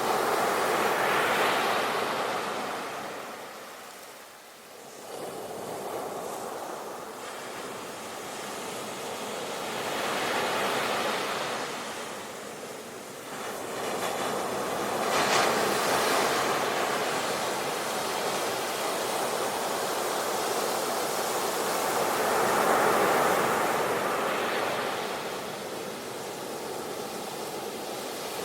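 Ocean waves breaking and washing on a shore, swelling and fading in slow surges every several seconds, with no voice.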